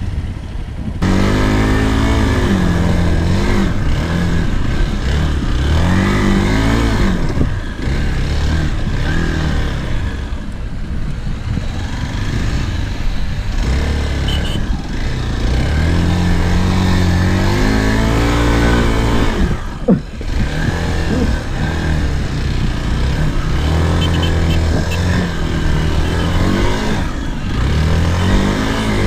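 Single-cylinder Hero Xpulse 200 motorcycle engine revving up and easing off again and again as it is ridden through sand, its pitch rising and falling with the throttle. There is a sharp knock about two-thirds of the way through.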